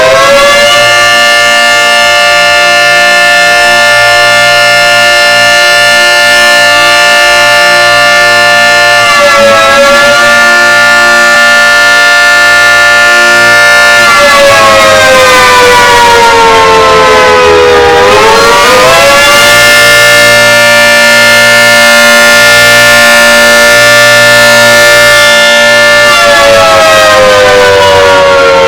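Outdoor warning siren sounding a loud, sustained steady tone. Its pitch dips briefly about a third of the way in, slides down slowly and then climbs back up past the middle, and falls away again near the end.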